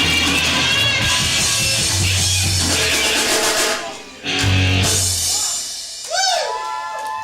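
Punk rock band playing live with distorted electric guitars, bass and drum kit. The band stops about four seconds in and hits one final chord together. The sound then dies away into a sliding, wavering pitch and steady ringing tones.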